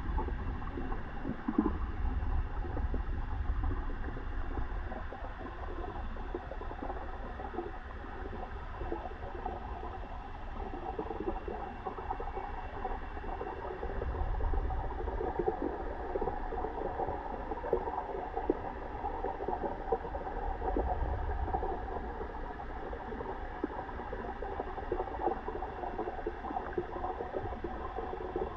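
Water gurgling and bubbling steadily, with low rumbles that swell and fade a few times.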